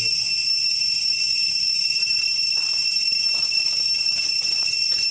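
Steady, high-pitched insect chorus, a continuous ringing drone held at a few fixed pitches. Faint scattered ticks and rustles come in around the middle.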